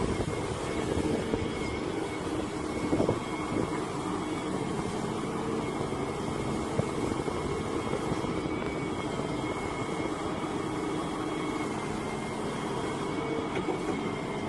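Volvo wheeled excavator's diesel engine running steadily while the rotating coupler turns and tilts the bucket hydraulically, with a thin steady high whine over the engine's drone.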